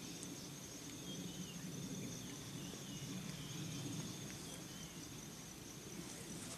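Insects trilling steadily at a high pitch, with a few short warbling chirps in the first half and a faint low rumble underneath.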